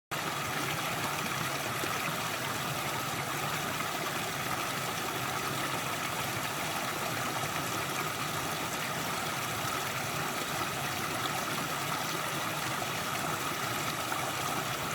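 A steady, even hiss of broad noise that does not change, like rushing air or running water.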